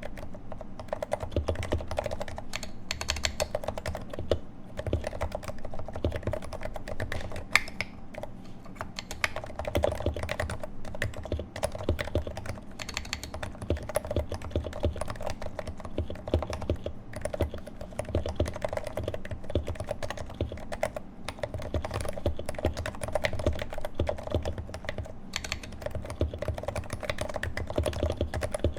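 Continuous fast typing on a Leopold FC660C Topre keyboard with 55 g domes, its Novatouch sliders lubed with Tribosys 3204 and fitted with Silence-X rings: a steady stream of many muted keystrokes a second.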